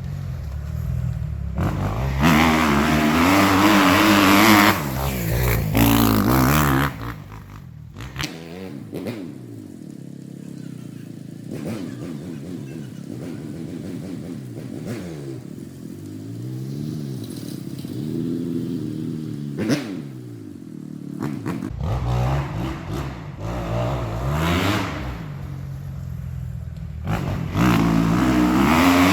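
Kawasaki 250 motocross bikes revving hard, rising and falling in pitch as they accelerate and shift. The engines are loud and close for the first several seconds, drop to a quieter, more distant note through the middle, and grow loud again near the end.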